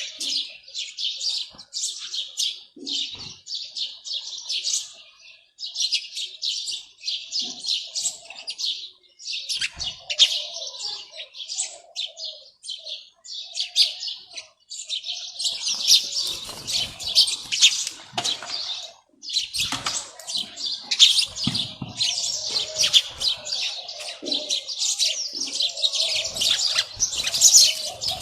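Many small birds chirping at once in a continuous, busy chatter, growing denser in the second half, with a few soft low thuds mixed in.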